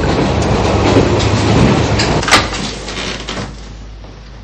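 Steady rumble of a moving railway carriage, with one sharp knock about two seconds in. The rumble then fades away over the last two seconds.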